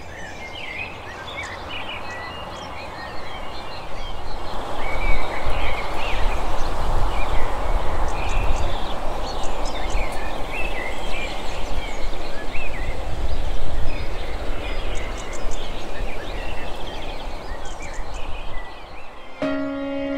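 Outdoor ambience of many small birds chirping over a steady hiss with a low rumble, louder from about four seconds in. Music with held notes comes in near the end.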